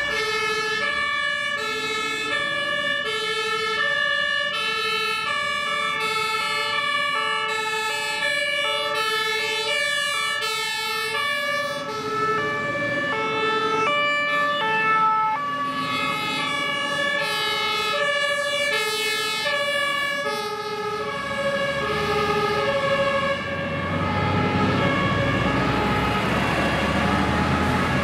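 German two-tone emergency sirens (Martinshorn) on fire engines, alternating high and low tones in a steady rhythm. From about twelve seconds in, more sirens join out of step and overlap. Toward the end the low rumble of the trucks' engines grows as they pass close.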